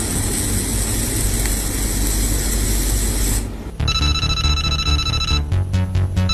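A dense, steady hiss with a low rumble that cuts off suddenly about three and a half seconds in, followed by electronic background music with steady high tones over a repeating bass beat.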